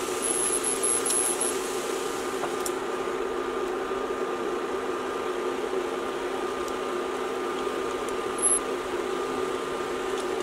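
A steady mechanical whir like a running fan, with a faint hum in it. A few faint clicks of metal kitchen tongs against the skillet are heard as vegetables are dropped in.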